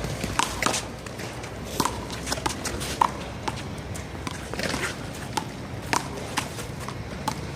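Rubber handball rally: irregular sharp smacks of the ball being hit by hand and bouncing off the wall and pavement, about a dozen in all, with players' footsteps.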